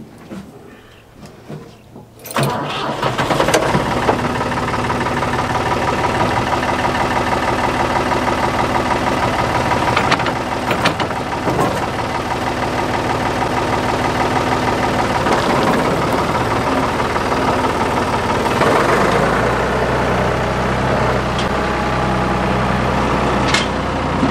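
Ford backhoe's engine starting about two seconds in, then running steadily; its sound turns deeper near the end.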